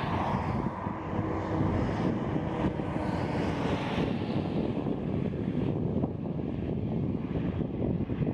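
Wind buffeting the microphone, a rough rumbling noise, with a faint distant engine drone under it in the first few seconds.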